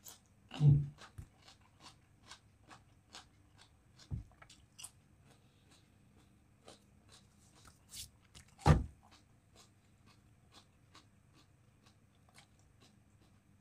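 Close-up mouth sounds of eating: chewing and swallowing the last mouthfuls of raw vegetables, with many small wet clicks. Two louder thumps stand out, about a second in and again about two-thirds of the way through.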